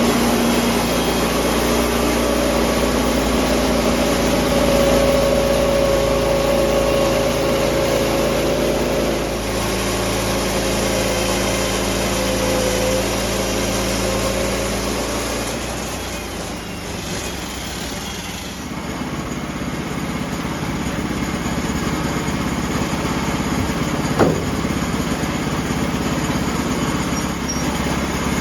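Small gasoline engine of a portable sawmill running steadily, its pitch and loudness shifting a couple of times as the mill works the log. A single sharp click near the end.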